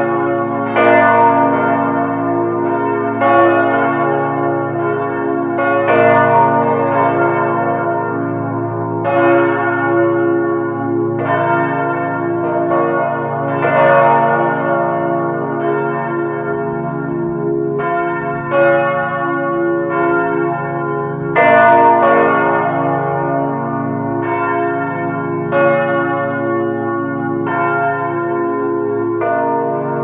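Several large church bells swinging in their belfry, heard up close: the clappers strike again and again, a stroke every second or two, and the long ringing hum of each bell overlaps the next.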